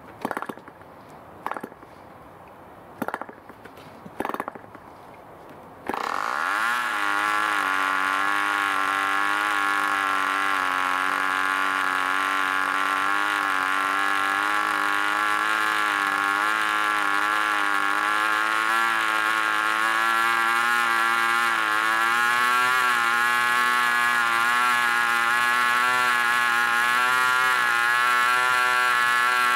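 D-C Tornado Twin 5 cc boxer-twin model-aircraft glow engine being hand-started: four short bursts of firing as the propeller is flicked over, then the engine catches about six seconds in, its pitch climbing quickly to a steady high-pitched run with a slight waver, edging higher near the end.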